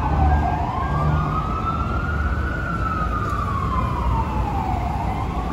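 Emergency vehicle siren in a slow wail: its pitch falls, rises for about two seconds, falls again over about two and a half seconds, then starts rising again near the end, over the low rumble of street traffic.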